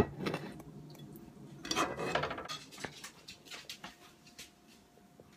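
A ceramic dinner plate and serving utensils clinking and scraping as food is dished up. A sharp knock comes at the very start, a short flurry of clatter about two seconds in, and a few light clicks after.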